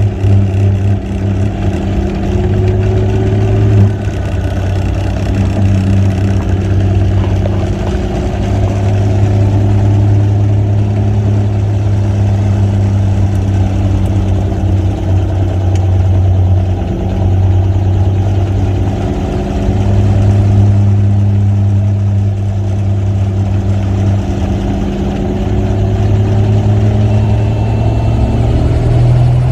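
Helicopter in flight heard from inside the cabin: a loud, steady rotor-and-engine drone, with its pitch rising slightly near the end.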